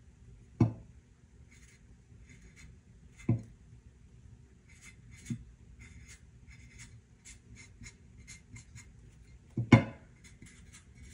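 Sharpie marker writing on an armor plate in quick short strokes. A few sudden thumps fall in between, the loudest near the end.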